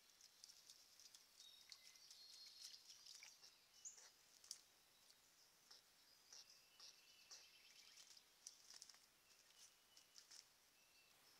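Near silence with faint, scattered high-pitched chirps and ticks of small birds, over a low hiss.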